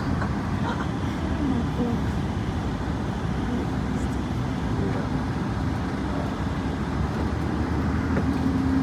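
Steady low rumble of a vehicle driving, with a faint hum coming in near the end.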